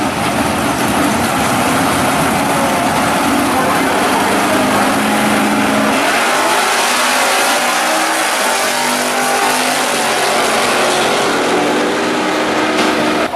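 Two drag-racing cars' engines held at a steady rev on the starting line, then launching about six seconds in and accelerating hard down the strip, the engine pitch climbing and dropping back with each gear change.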